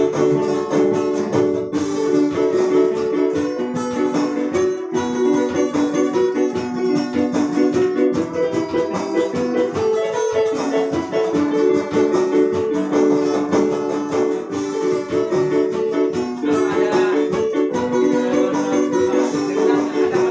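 Live band music in a small room: an electronic keyboard and a strummed acoustic guitar playing together, with a trombone joining at times.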